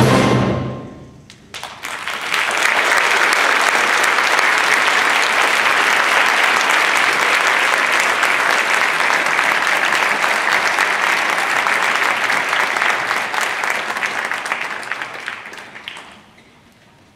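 A concert band's final chord dies away in the first second, then the audience applauds for about fourteen seconds, fading out near the end.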